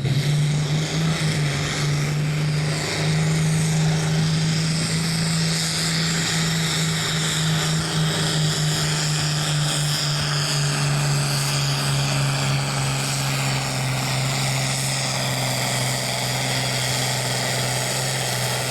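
Farm tractor at full throttle pulling a weight-transfer sled down the track, its engine held under full load as one loud, steady drone. The pitch eases down slightly in the last few seconds of the run.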